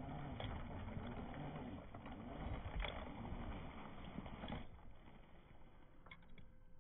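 Electric RC crawler's motor and gears whining, the pitch rising and falling as the throttle is worked while it pushes through deep snow, with a few sharp clicks; the whine stops about two-thirds of the way in.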